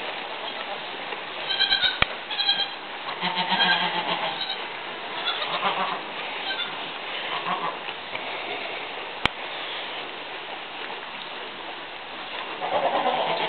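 Goats bleating: short, high-pitched bleats about two seconds in, a lower bleat just after, more scattered calls in the middle and a last bleat near the end. A sharp click comes about nine seconds in.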